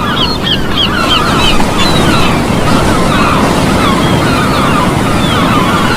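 Steady rushing wind and water noise with many birds calling over it in quick, wavering chirps.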